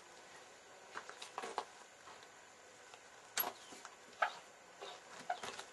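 Scattered knocks and scrapes of a kiln door being opened after a firing, about seven separate clacks with the loudest a little past halfway.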